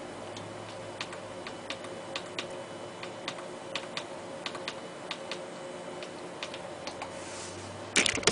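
Push buttons on an electronic load's front panel clicking one after another, irregularly, about two a second, over a steady fan hum. Near the end comes a loud rustling burst of handling noise.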